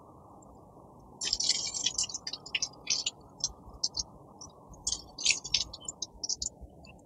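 Water spattering and dripping in short, irregular splashes as freshly repotted bonsai are soaked, water draining through the soil until it runs clear.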